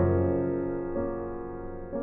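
Slow piano music: notes struck about once a second, each left to ring and fade away.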